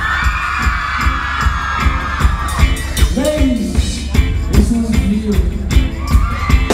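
Live band playing loud with heavy drums and bass and a singer. It opens on a long held high note, followed by sung phrases over the beat.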